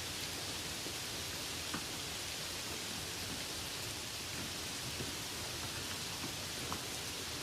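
Light rain falling steadily, an even hiss with a few single drops ticking out now and then.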